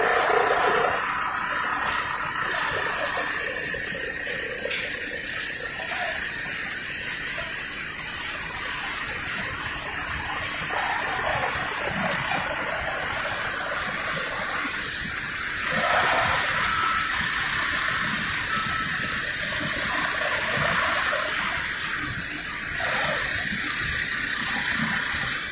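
Steady industrial noise of a working steel plant bay: a continuous hiss and rush, growing louder for a few seconds in the second half.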